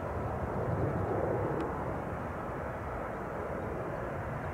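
Airbus A320-232's twin IAE V2500 turbofan engines heard from the ground as the jet climbs out after takeoff: a steady, broad jet rumble that slowly fades as the aircraft draws away.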